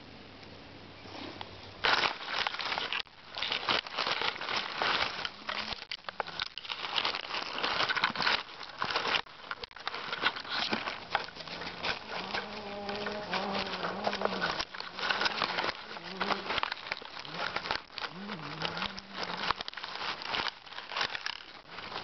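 Close rustling and crackling of dry leaves and twigs on a forest floor, beginning about two seconds in, as something moves and brushes against them right by the microphone. In the second half a low, wavering hum sounds a few times under the rustling.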